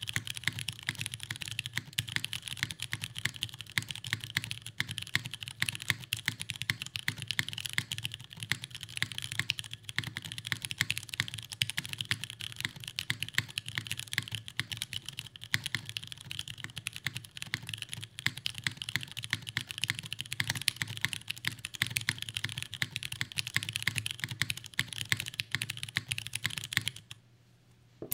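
Continuous typing on a 65% mechanical keyboard fitted with broken-in stock Cherry MX Brown tactile switches (1.2 million actuations) on an aluminium plate, O-ring mounted with no foam: a dense, unbroken run of keystrokes that stops about a second before the end.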